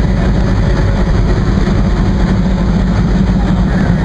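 Steady heavy rumble of a train in motion, with the deep running of an ALCO WDM3A diesel-electric locomotive standing close alongside.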